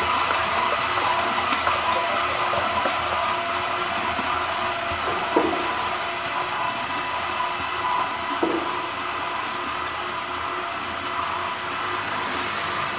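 Cosmetic mixer tank running: its electric gear motors drive the agitator churning thick white cream, a steady machine whir with a few fixed tones. Two short knocks, about five and eight and a half seconds in.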